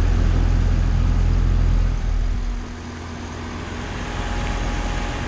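Outdoor condensing unit of a 5-ton Daikin central air conditioner from 2018, running in cool mode: a steady fan and compressor hum. A heavy low rumble drops away about two and a half seconds in, leaving the lighter hum, which slowly grows louder again.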